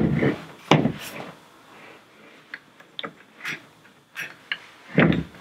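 Handling noise from a Beretta A400 Xcel shotgun being cleaned: a series of knocks and clicks with some rubbing as the action is wiped and the gun shifts on the table. The loudest knocks come at the start and about five seconds in.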